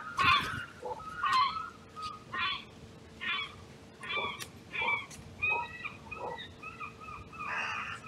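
Carrion crows calling, a run of short harsh caws about one or two a second, with a sharp knock just after the start.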